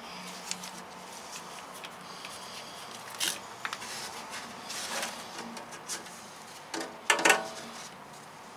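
Battery hold-down strap and buckle being handled and fastened over a battery in a metal box: scattered light clicks, rustles and taps, with a louder rattling clatter about seven seconds in.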